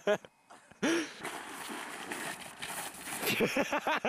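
Voices shouting, then about two seconds of steady hiss from a small snowboard scraping down a snowy slope, followed by more voices near the end.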